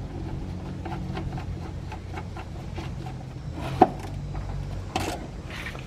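Light clicks and knocks of hand work at the oil pan's drain plug, with one sharp click a little before four seconds in and another about a second later, over a steady low hum.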